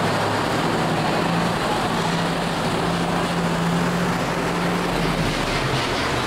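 Steady street noise, like traffic, with a low droning hum through the middle few seconds that fades out near the end.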